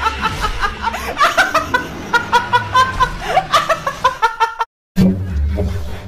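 A woman laughing hard in quick, choked bursts, her hand pressed over her mouth. Near the end the laughter cuts off, there is a brief silence, and music starts.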